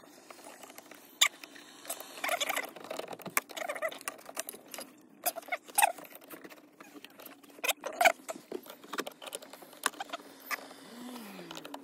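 Irregular clicks, knocks and scraping of a flathead screwdriver prying at the plastic shift bushings on a Mazda 3's manual gear-shift linkage, trying to work them off.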